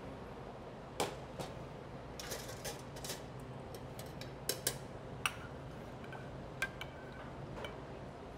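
Metal spoon clinking and scraping against a stainless steel saucepan in a string of irregular clinks, the loudest about a second in, over a steady low hum.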